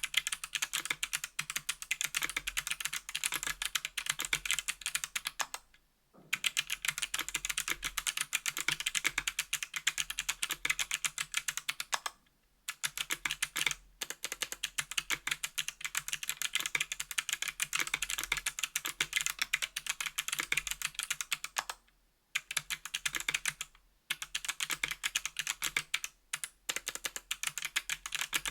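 Fast typing on a 60% aluminum keyboard with Kailh BOX Crystal Jade clicky switches and GMK keycaps: a rapid stream of sharp clicks in runs of several seconds. Brief pauses come about six seconds in, twice between twelve and fourteen seconds, and a few times after twenty-two seconds.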